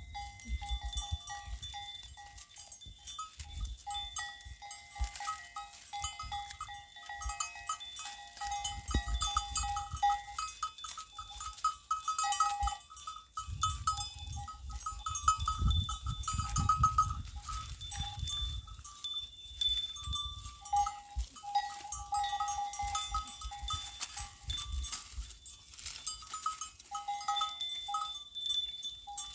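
Goats browsing on leafy cut branches, with leaves and twigs rustling, snapping and clicking as they pull and chew. Low rumbles come in at times, and steady high-pitched chirring runs on and off in the background.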